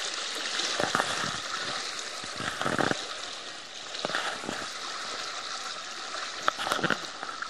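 Fast-flowing floodwater rushing and swirling around people wading waist-deep, with a few splashes and sloshes as they push through it.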